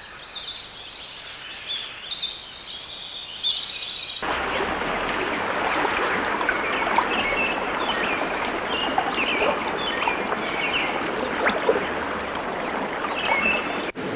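Birds calling for about four seconds, then a sudden change to a steady rush of water with small splashes and occasional bird chirps.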